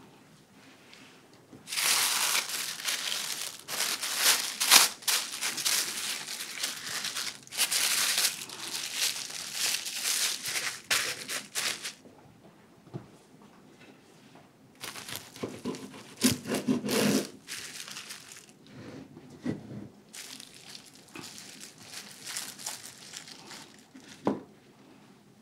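Parchment paper crinkling and rustling as it is folded tightly around a sandwich, loud for about ten seconds. Then come quieter rustles and handling sounds, and a single knock near the end.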